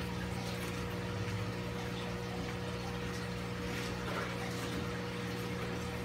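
Aquarium pumps and filters running, with a steady hum and water flowing.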